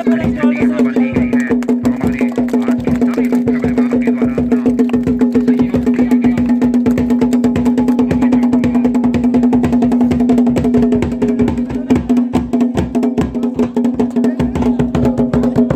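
Folk drum music: a dhol beaten in fast, even strokes over a steady, unbroken drone note.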